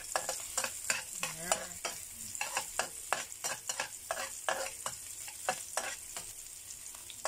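Metal spatula scraping and knocking against a wok, several strokes a second, stir-frying sliced shallots, garlic and ginger in hot oil, over a steady sizzle.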